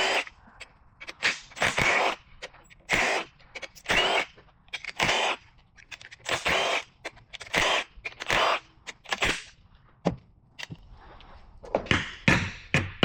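Impact wrench in about a dozen short bursts, roughly one a second, spinning out the bolts of an AAM 3.27 differential's rear cover.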